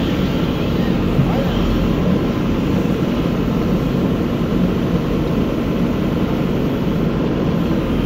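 JCB backhoe loader's diesel engine running steadily under load while the backhoe digs wet mud, heard from inside the operator's cab.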